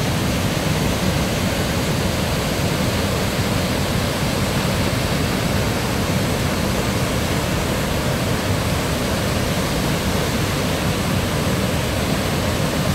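Waterfall in heavy flood flow: a steady, loud, deep rush of falling white water that does not let up.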